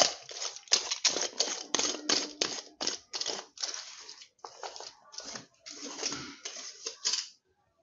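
Rapid, irregular run of sharp clicks and clatters, about three a second, stopping near the end.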